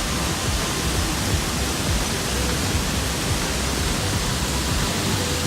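Steady rushing of water pouring down a tall waterfall, an even noise spread from low to high pitches with no breaks.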